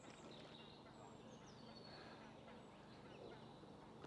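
Near silence: faint outdoor background with a low steady hum and a few faint, thin high bird calls.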